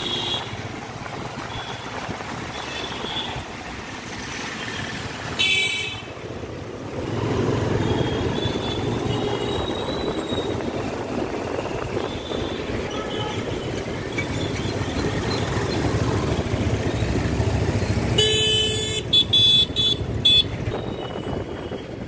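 Busy street traffic heard from a moving vehicle, with a steady low rumble of engines and tyres. Vehicle horns honk over it: one loud blast about a quarter of the way in, and a quick run of short toots near the end.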